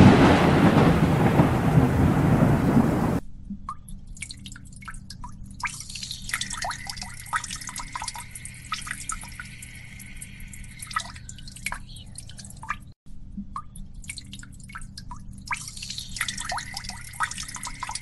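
A loud clap of thunder with a rumbling tail, cut off abruptly about three seconds in. After it come close, irregular drips of rainwater falling from wet leaves, many single sharp ticks.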